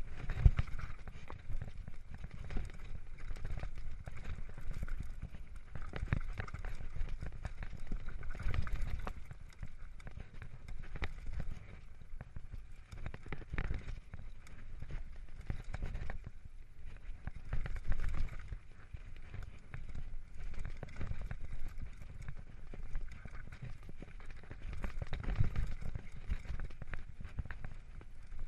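Mountain bike riding fast down a rough dirt and gravel forest trail: tyres rolling over stones and roots, with the bike clattering in irregular knocks and a steady low rumble of wind on the microphone.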